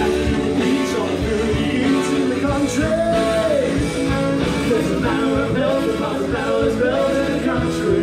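Rock band music with electric guitar and drums, starting abruptly at full volume.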